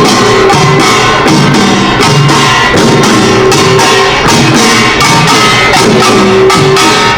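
Korean pungmul percussion ensemble playing a fast, loud rhythm: the small kkwaenggwari gongs clanging in quick strokes over janggu and buk drums, with sustained gong tones ringing underneath.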